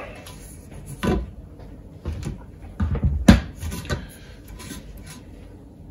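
White plastic pipe coil former handled and laid down on a wooden worktop: a few separate knocks and bumps, the loudest a little over three seconds in.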